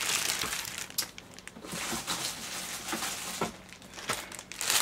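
Clear plastic packaging crinkling and rustling as it is handled, in irregular bursts with a few sharp clicks.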